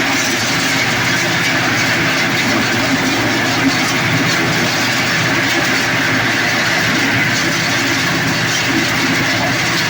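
Areca nut husking machine running steadily, a loud continuous mechanical clatter with no let-up.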